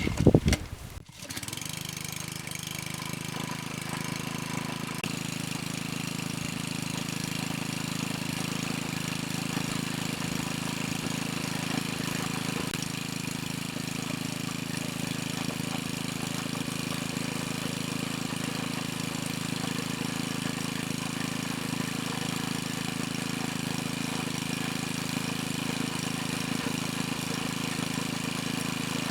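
Log splitter's small gasoline engine catching about a second in, right after a brief loud clatter, then running steadily at an even speed.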